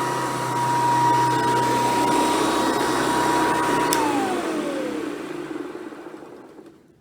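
Hoover Decade 800 convertible upright vacuum cleaner running steadily with a whine. It is switched off with a click about four seconds in, and its motor whine falls in pitch as it winds down to a stop.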